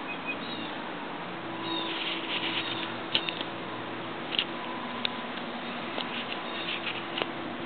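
Beagle puppies giving short, high squeaks and yips now and then as they play, with a cluster of them about two seconds in and again near the end.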